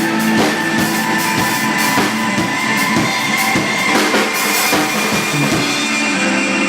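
Live band music: a drum kit playing a steady beat under sustained instrument tones.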